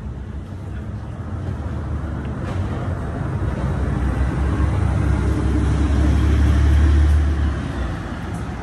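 A motor vehicle passing close by, its noise and low rumble building over several seconds to a peak and then dropping away near the end.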